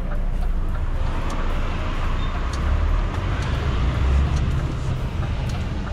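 DAF truck's diesel engine running under load as the truck pulls away, a steady low rumble mixed with road noise, heard from inside the cab.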